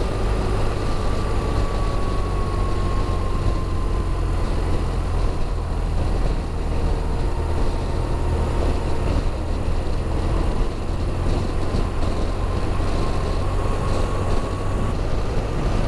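BMW R1200RT boxer-twin touring motorcycle cruising at highway speed: steady wind rush with a deep rumble of wind on the microphone over the engine and road noise. A faint thin whine sags slightly in pitch and rises again near the end.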